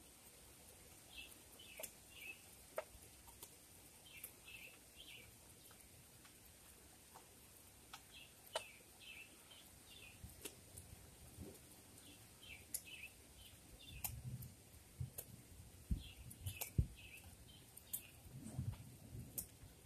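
A songbird repeating a short phrase of three or four quick downslurred notes every few seconds, over scattered faint ticks. In the second half come a few low thumps and rumbles, which are the loudest sounds.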